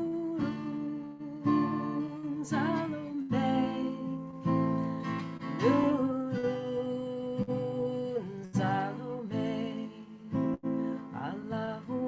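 Acoustic guitar strummed steadily, with a voice singing long held notes of a devotional chant melody.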